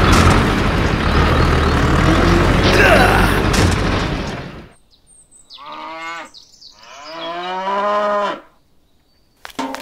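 An engine running with a steady rumble that stops about four and a half seconds in; then a cow moos twice, a short moo followed by a longer one.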